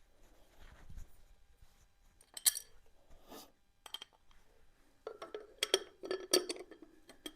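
Metal clinks and clicks of tools and small engine covers being handled and set in place, a few separate ones, then a quick cluster of them near the end.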